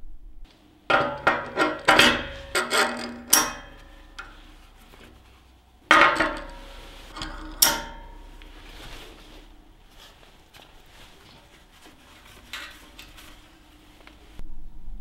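Steel welding-table clamps being set into the holes of a steel welding table and tightened onto a square steel tube frame. A quick run of sharp metallic clanks and clicks comes about a second in, two more knocks follow about halfway through, then quieter handling.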